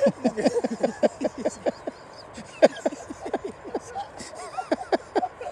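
Alpacas calling: a quick run of short, falling notes, about five a second at first, then more scattered.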